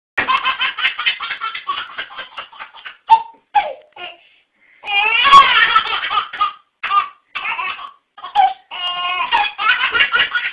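Baby belly-laughing in fits of quick, repeated bursts, with short breaks between them. The laughter starts suddenly.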